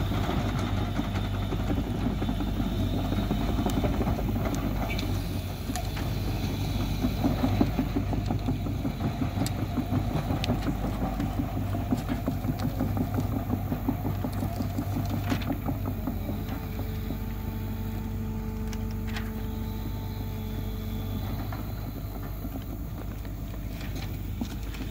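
An engine running steadily with a low hum and a pulsing drone; about two-thirds of the way through the pulsing fades and a steadier hum remains. A few sharp crackles of plastic and tape being handled sound over it.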